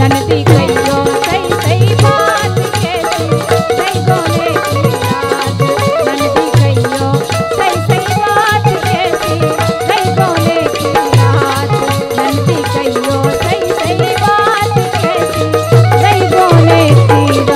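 Instrumental break in a Bundeli folk song: a wavering melody over a steady drone, with regular hand-drum beats and fast, constant percussion.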